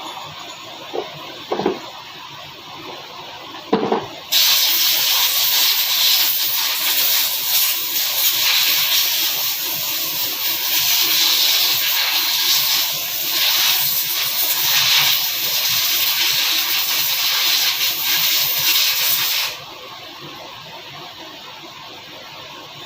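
A few short knocks, then a loud, steady hiss of a pressurized jet, such as air or spray used to clean engine parts, lasting about fifteen seconds before cutting off suddenly.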